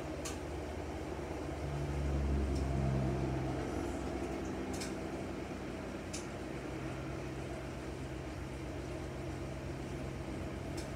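A steady low mechanical hum that swells for a second or two about two seconds in, with a few faint ticks scattered through.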